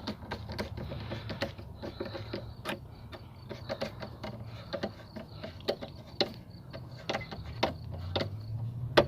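Irregular clicks and knocks of plastic air-intake parts being handled and fitted together, a few sharper knocks among them, over a low steady hum.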